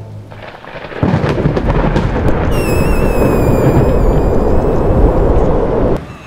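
Loud, deep thunderous rumble that starts about a second in and cuts off suddenly near the end, with a high wavering whistle-like tone over its middle.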